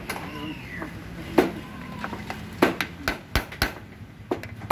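Sharp, irregular taps and knocks from a hand tool working the mounting bolts in a car's roof-rail channel. The taps come closer together in the second half. A faint voice is heard in the first second.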